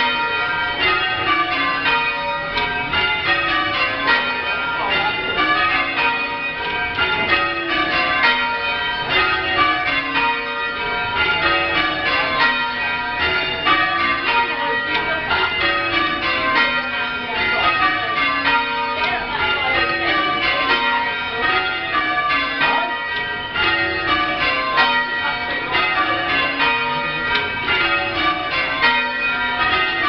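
A ring of six church bells rung full circle on ropes, heard from the ringing chamber: the bells strike one after another in steady falling runs from the highest bell down to the tenor, over and over, their tones ringing on into each other.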